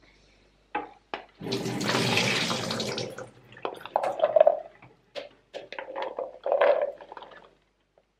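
Soaked chickpeas and their water poured from a plastic jug through a plastic sieve into a stainless steel sink: a gush of water splashing for about a second and a half, then the drained chickpeas rattling and knocking against the plastic sieve and jug.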